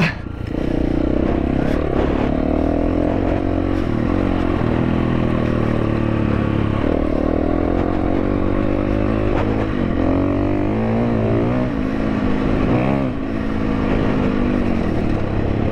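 2022 KTM 350 EXC-F's single-cylinder four-stroke engine running under way, revving out. It holds steady for the first half, then dips and climbs in pitch several times in the second half as the throttle is worked.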